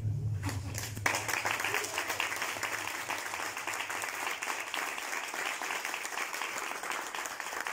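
Audience applauding, the clapping starting about a second in as a low musical drone fades out, then holding steady.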